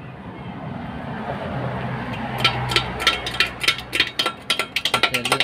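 Quick series of sharp metallic clinks of metal striking steel, starting about halfway through and coming faster, about five a second, toward the end, over a steady low hum.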